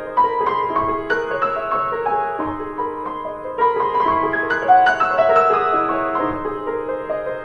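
Instrumental background music: a piano-like keyboard playing a steady run of struck notes.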